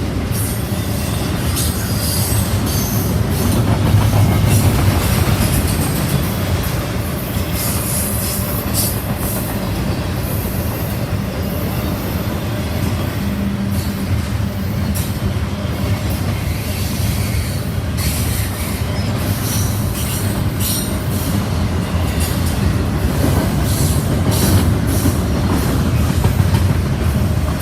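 A train's cars rolling past in a steady, loud rumble, with short high-pitched squeals from the wheels on the rails now and then.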